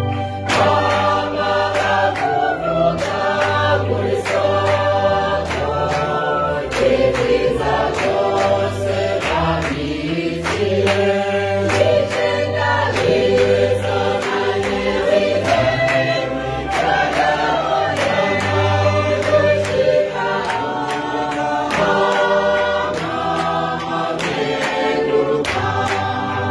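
Congregation singing a hymn together in chorus, with an electronic keyboard and steady rhythmic hand clapping.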